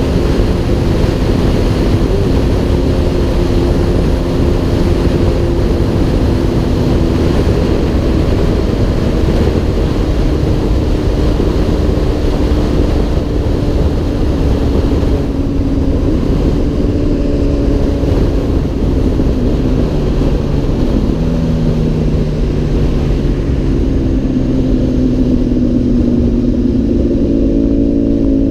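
Honda CBR1000RR inline-four running at highway speed through a HotBodies undertail exhaust, heard from a helmet-mounted camera under heavy wind rush. About halfway through, the wind eases and the engine note drops as the bike slows for an exit ramp, then climbs again near the end.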